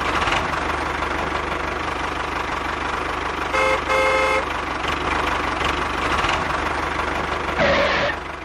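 Small motor of a miniature model vehicle running steadily, with two short horn toots about three and a half and four seconds in.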